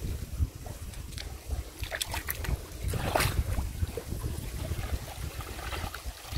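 Wind rumbling on the microphone, with splashes and drips of water as a wet cast net is drawn up out of a muddy pool; the splashing is strongest about three seconds in.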